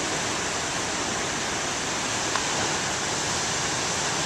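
Heavy ocean surf breaking on the shore: a steady rushing roar of waves.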